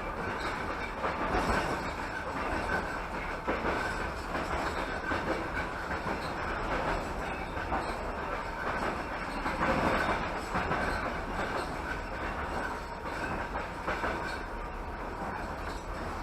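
Passenger train carriage running along the line, heard from inside: a steady rolling rumble of the wheels on the rails with irregular clacks over the rail joints.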